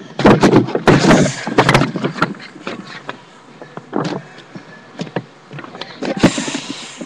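A paper drawing rustling and bumping against a webcam's microphone as it is handled right at the lens. The rustling is loud and ragged for the first two seconds, then breaks into scattered soft clicks, with one short loud scrape a little past six seconds.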